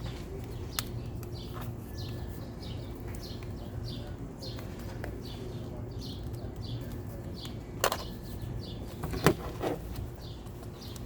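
A small bird chirping over and over, short high chirps about three a second, with a few sharp clicks, the loudest about nine seconds in, over a steady low hum.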